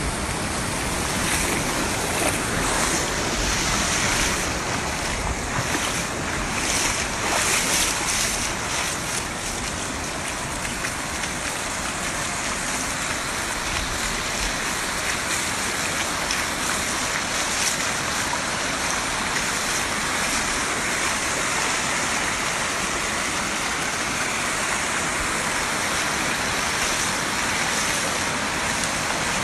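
Vans driving through a flooded road, their tyres ploughing and splashing through the water, over a steady rushing noise of water and wind. It surges louder a few times in the first several seconds.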